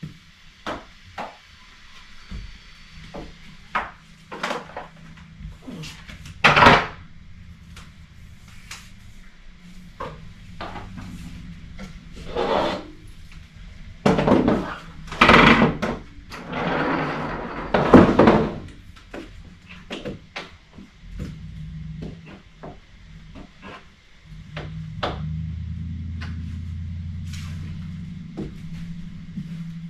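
Household tidying: a run of knocks, clunks and clicks of things being handled and put away, with a few longer rubbing or scraping sounds in the middle. A low steady hum comes in near the end.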